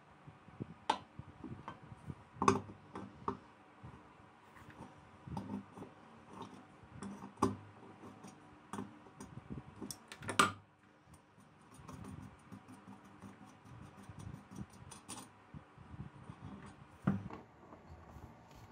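An adjustable wrench clicking and knocking against a nut and the metal lamp base as the nut on the threaded stem is worked loose and removed. Irregular light metallic clicks with a few sharper clanks, the loudest about ten seconds in.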